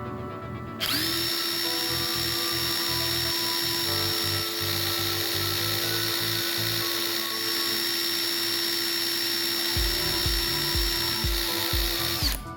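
A small electric power-tool motor spins up about a second in, runs at a steady speed with a high whine, then stops near the end. Background music with a beat plays underneath.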